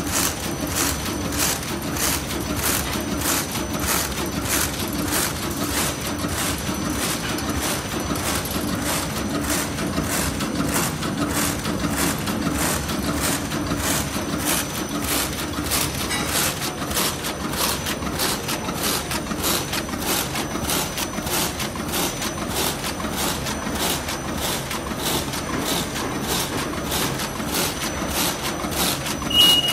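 Roll-to-sheet cutting machine for greaseproof paper running, its cutter knocking in a fast, even rhythm a few times a second over a steady low hum.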